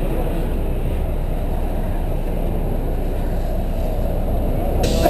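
Inside a city bus on the move: the steady low rumble of the bus's engine and road noise. A hiss joins near the end.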